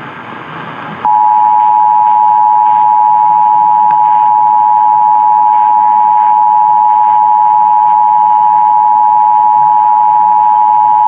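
Emergency Alert System attention signal, heard over AM radio: two steady tones sounding together at about 853 and 960 Hz, held continuously. It starts about a second in, after a short gap of radio hiss that follows the SAME data header. It marks an EAS Required Monthly Test.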